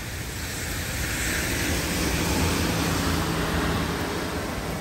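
Steady rain hiss, with a vehicle passing on the wet street: its tyre spray swells to a peak in the middle and fades away.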